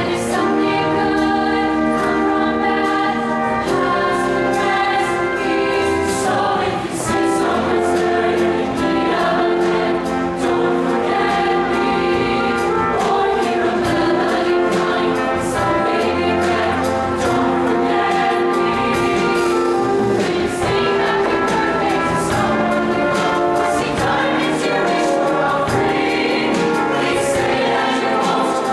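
Mixed-voice show choir singing in harmony, holding sustained chords, over an instrumental accompaniment with a steady bass line.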